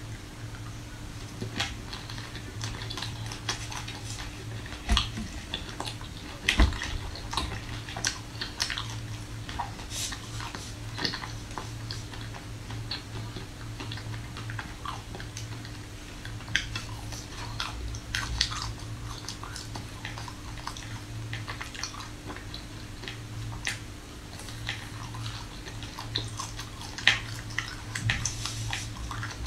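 Close-up biting and chewing of hard-frozen ice cream bars on sticks: irregular sharp crunches and cracks as the frozen bar breaks between the teeth, a few much louder bites among them. A steady low hum lies under it.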